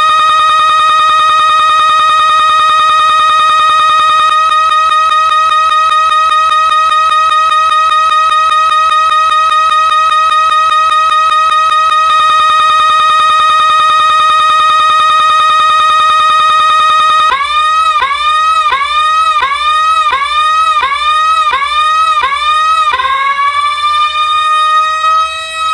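Electronic siren-like ringtone, loud. A high steady tone becomes a fast warble, goes steady again, and then swoops down and up about twice a second, ending in one long rising-and-falling sweep.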